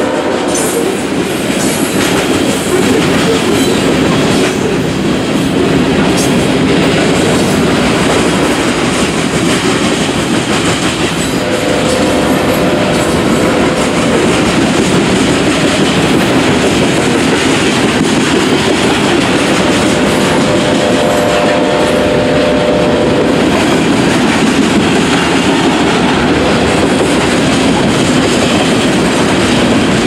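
CSX freight train of covered hopper cars rolling steadily through a grade crossing: a continuous loud rumble with the clickety-clack of wheels over rail joints. A faint steady squeal comes in twice.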